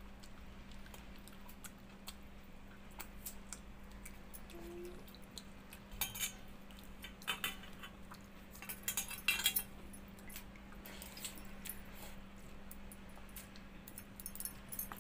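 Scattered light clinks and jingles of bangles and fingers against a stainless-steel bowl as a hand scoops watered rice. They come thickest around six seconds in and again around nine, over a faint steady hum.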